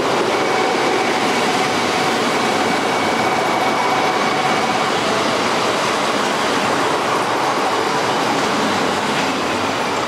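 KiHa 85 series diesel railcars rolling past close by along the platform: a steady rolling noise of wheels on rail and the train's diesel engines.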